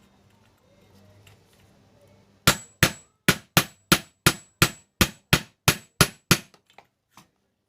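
A hammer tapping on metal: about a dozen sharp, ringing strikes at about three a second, followed by two lighter taps near the end.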